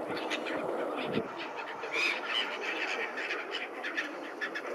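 Waterbirds calling on a river, gulls and ducks with short squawks and quacks, one clearer call about two seconds in. A busy scatter of close clicks and splashes runs beneath the calls.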